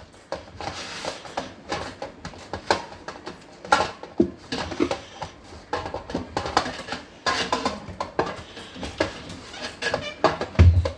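Hands kneading atta dough in a bowl: irregular soft slaps and knocks of dough against the bowl, with a single heavier low thump near the end.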